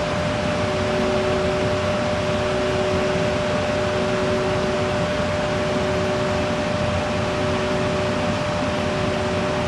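EF81 electric locomotive standing still with its cooling blowers running: a steady hiss with a faint, steady two-note hum.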